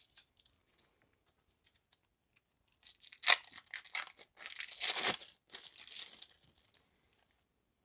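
Crinkling and tearing of a food wrapper being handled and pulled open, in a cluster of irregular bursts that starts about three seconds in and lasts about three seconds.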